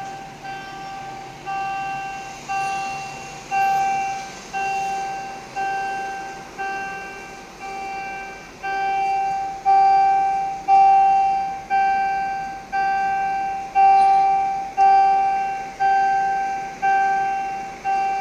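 An electronic chime-like tone repeating one note about once a second, each note fading away before the next.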